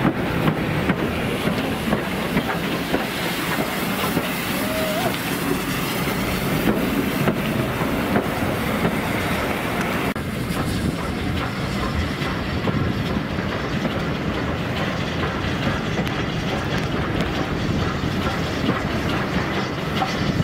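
A steam-hauled train running by, its carriage wheels clicking over the rail joints.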